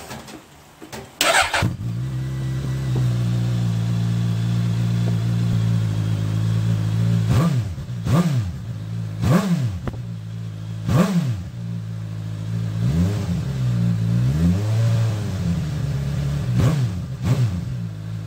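Suzuki GSX-S1000's inline-four on its stock exhaust starting about a second in and settling into a steady idle. It is then blipped quickly four times, revved more slowly and roundly a few times, and blipped twice more near the end.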